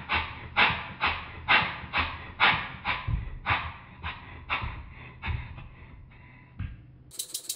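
Basset-Lowke Tangye model steam engine running on steam, its exhaust beats sharp and evenly spaced at about two a second. After about three seconds the beats grow weaker and further apart and die away near the end, with a few dull knocks among them. A faster, sharper ticking begins just before the end.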